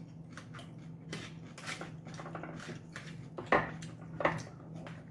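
Eating utensils clinking and scraping against red plastic food trays and glass jars, in scattered small clicks with the sharpest clacks about three and a half and four seconds in, over a steady low hum.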